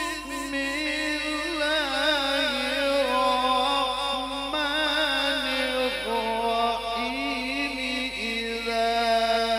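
A man's voice reciting the Quran in the slow, ornamented tilawah style, amplified through a handheld microphone. It is one long drawn-out melismatic passage with trills and wavering turns, settling into steadier held notes in the second half.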